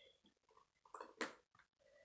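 Near silence with two short, faint clicks about a second in: small plastic Lego pieces being handled and pressed together.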